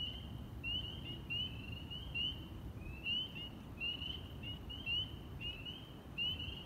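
Chorus of male spring peepers calling to attract mates: short, high peeps that slide upward in pitch, repeating two or three times a second from several frogs, some overlapping.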